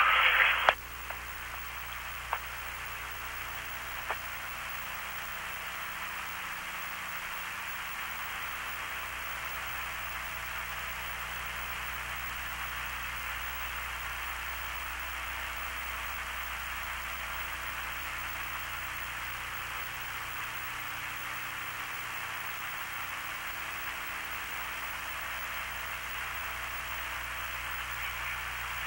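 Steady hiss of an open radio communications channel, cut off above and below like a telephone line, over a low mains hum, with a couple of faint clicks in the first few seconds.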